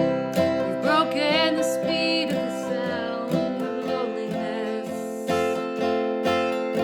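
Acoustic guitar strummed steadily in an instrumental break of a folk-country song, with a wavering lead melody with vibrato over it in the first few seconds.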